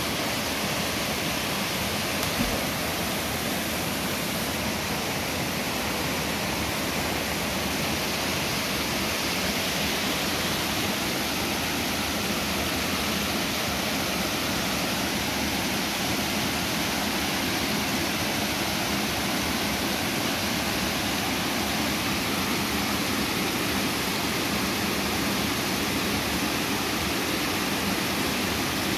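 Water spilling over a stepped concrete weir into a pool: a steady, unbroken rush.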